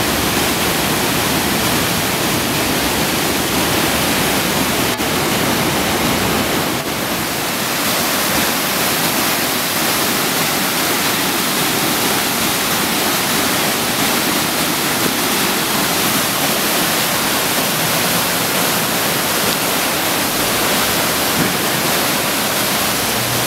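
Swollen floodwater rushing in a steady, loud noise as a brown creek churns through its stone-walled channel in white-water rapids.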